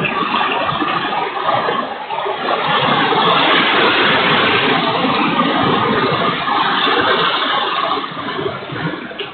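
Typhoon downpour with strong wind: a loud, dense, steady rush, easing a little near the end.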